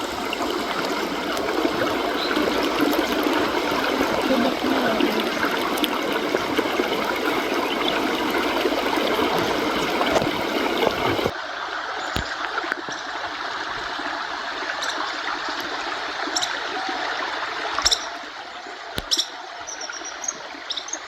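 Water trickling and running steadily, like a small stream. About halfway through it cuts to a quieter stretch of the same rushing, with a few sharp clicks.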